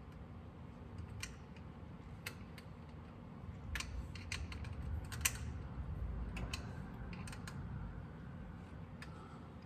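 Irregular light clicks and taps of small metal parts and hand tools being handled during distributor work, over a low rumble.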